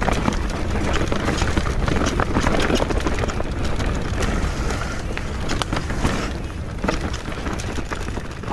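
Enduro mountain bike ridden fast down a dirt and leaf-covered forest trail: a steady low rumble of tyres on the ground, with frequent rattles and knocks from the bike over roots and stones.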